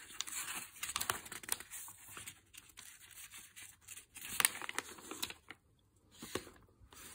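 Thin newsprint-style paper rustling and crinkling as a magazine booklet's pages are handled and a folded poster page is opened out, with sharp crackles and a short lull near the end.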